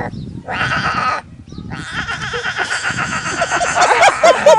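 Goat bleating: a short bleat, a brief pause, then a long loud bleat that breaks into a quick wavering series of pulses near the end.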